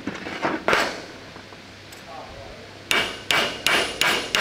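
Hammer blows: a single strike just before a second in, then a steady run of strikes about three a second from about three seconds in.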